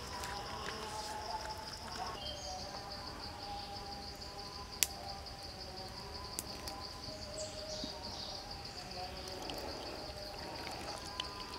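Insects buzzing in a steady, high-pitched chorus, with fainter steady lower tones beneath. There is a single sharp click about five seconds in.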